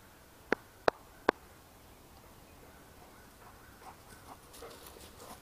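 Three sharp clicks in quick succession, about half a second apart. Then, from about three and a half seconds in, faint soft patter as a dog runs across grass toward the camera.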